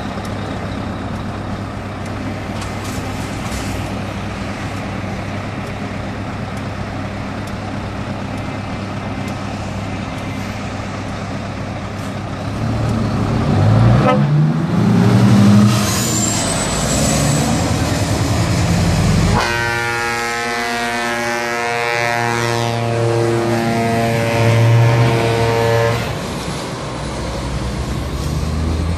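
Scania truck's diesel engine idling steadily, then revving and rising in pitch as it pulls away about halfway through. A few seconds later a truck air horn sounds one long, steady multi-tone blast for about six seconds.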